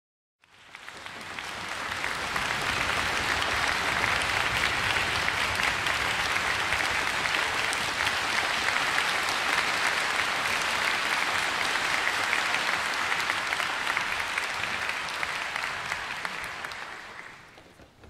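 Concert audience applauding. The clapping starts about half a second in, swells to a steady level, and dies away near the end.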